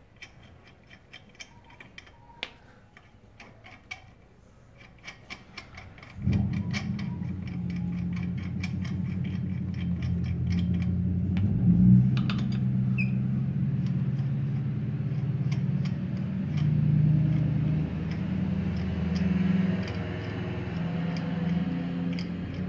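Lug nuts being spun off the wheel studs by hand, making rapid faint metallic clicking. About six seconds in, background music with low sustained notes comes in and becomes the loudest sound.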